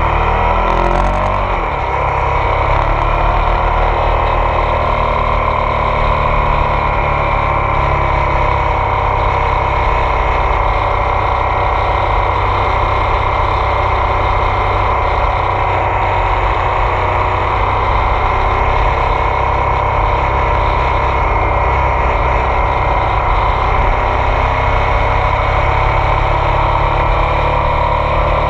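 Onboard sound of a Ducati Multistrada 1200 S DVT's Testastretta V-twin engine under way, with wind rumbling on the microphone. The engine note falls in pitch over the first couple of seconds, then holds fairly steady with small rises and falls.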